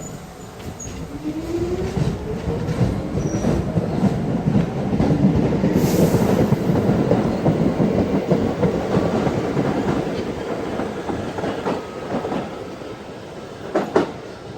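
New York City subway train speeding up. Its traction motors whine upward in pitch over the first few seconds under a growing rumble of wheels on rail. The rumble eases off after the middle, and a sharp clack comes near the end.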